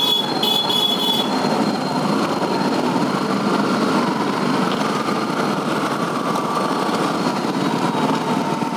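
Motorcycle engine running amid dense city traffic noise while riding slowly. A short high-pitched beep sounds twice in the first second and a half.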